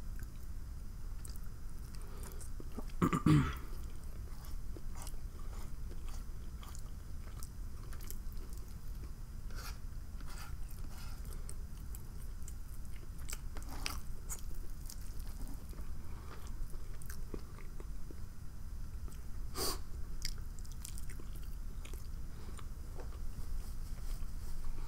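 A person chewing and eating food close to the microphone, with small wet mouth clicks throughout. There is a louder, brief sound with a pitch about three seconds in, and a sharp click about twenty seconds in.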